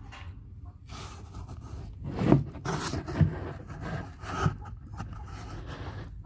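Rustling and scraping noise close to the microphone, with three louder dull knocks about two, three and four and a half seconds in; no clear mewing.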